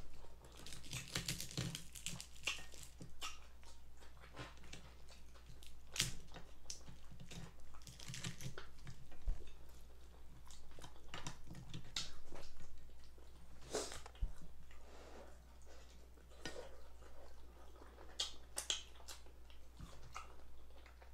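Close-up eating of fried chicken: chewing and crunching with wet mouth sounds and many short crackly clicks, some louder than others.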